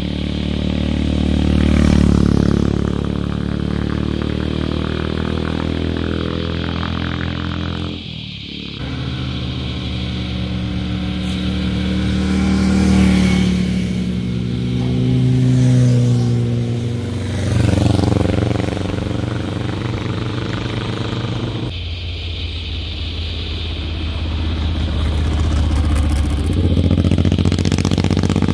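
Motorcycles riding past one after another through a bend, their engines revving, with the engine note rising and falling as they pass. The sound changes abruptly twice, a third of the way in and about three-quarters through, as one bike gives way to the next.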